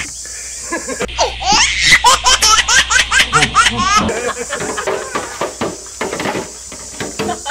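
High-pitched laughter, a rapid run of rising giggling cries from about a second in until about four seconds in, then fading to fainter scattered sounds.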